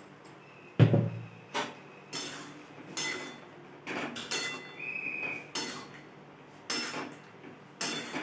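Metal spatula stirring chunks of eggplant, potato and taro in a metal kadai, knocking and scraping against the pan at an irregular pace. The loudest knock comes about a second in, with a brief high squeak of metal near the middle.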